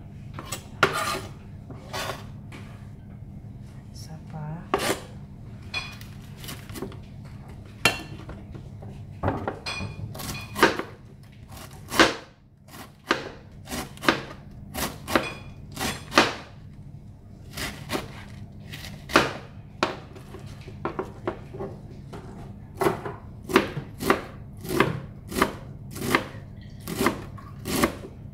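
Chef's knife chopping cabbage into small cubes on a plastic cutting board. Irregular sharp knife strikes come faster, about two a second, over the last few seconds, with a low steady hum underneath.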